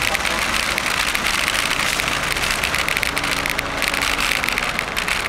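Continuous ride noise from a moving bicycle: wind and road rumble at the microphone, mixed with a dense, rapid rattle of small clicks.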